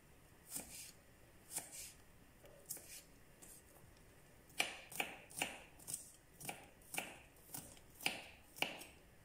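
Small kitchen knife cutting garlic cloves on a wooden cutting board: a few light separate cuts, then from about four and a half seconds in a run of knife taps on the board, about two a second, as the garlic is diced fine.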